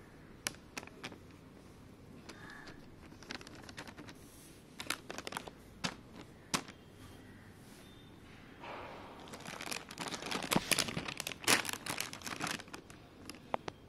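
Shiny foil and plastic surprise-bag packets crinkling as they are handled: scattered single crinkles at first, then a dense run of crinkling from about nine seconds in until near the end.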